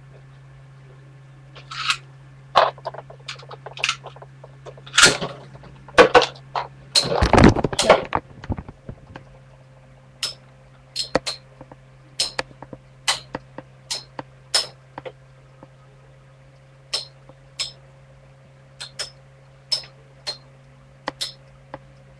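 Two Metal Fight Beyblade tops battling. In the first several seconds there is a flurry of loud clashes and clattering. After that come single sharp metallic clinks every half-second to second, as a spinning top knocks against its rival or the stadium wall.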